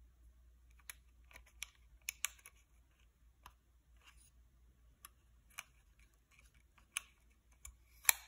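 Scattered small clicks and taps of a plastic SIM card and fingertips against the open battery compartment of a Pax A920 payment terminal, the loudest click near the end as the card meets the metal SIM slot.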